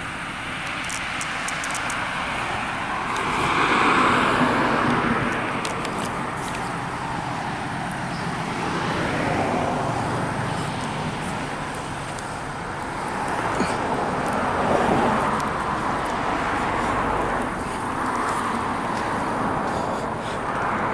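Road traffic: cars passing one after another on a road beside the railway tracks, each swelling and fading, with the loudest pass about four seconds in.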